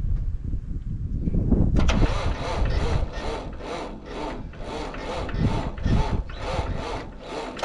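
Footsteps crunching, about two steps a second, starting about two seconds in; before that, wind rumbling on the microphone.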